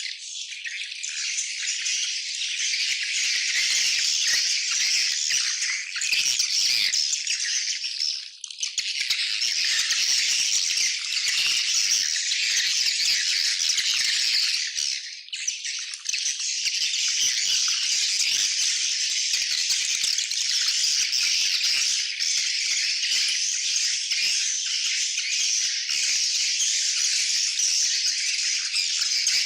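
A colony of swiftlets calling all at once: a dense, unbroken high-pitched chatter, with brief lulls about 8 and 15 seconds in.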